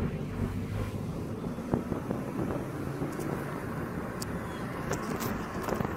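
Low, steady engine and tyre noise heard inside a 2015 Toyota Camry driving slowly, with a few light clicks.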